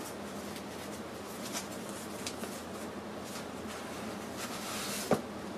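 Flaps of an old cardboard box being opened by hand and the papers packed inside shuffled: faint scrapes and light taps, with a short knock about five seconds in, over a steady low hum.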